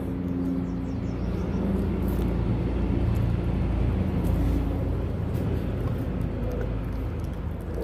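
A steady low mechanical rumble, with a few faint crunches of puppies chewing a raw fish.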